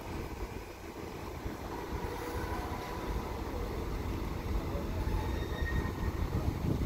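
Steady low rumble of a ro-ro ferry's engines and on-board machinery, with wind buffeting the microphone and faint high whining tones coming and going.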